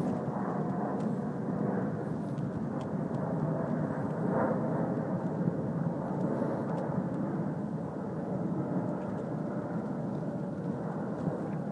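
Distant Airbus A380 airliner climbing out after takeoff: a steady, low jet rumble.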